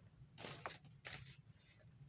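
Faint handling noise: two short rustling scrapes, about half a second and a second in, over a low steady hum.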